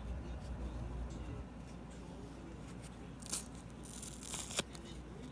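Foam sponge being torn apart by hand: soft crackling as fingers work the foam, with a short rip about three seconds in and a longer rasping rip about a second later that ends abruptly.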